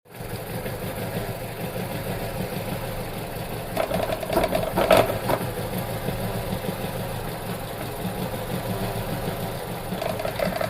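Vauxhall petrol engine idling roughly with an ignition misfire from a broken ignition coil, the running uneven and stumbling. It gets louder and choppier about four to five seconds in and rises again near the end.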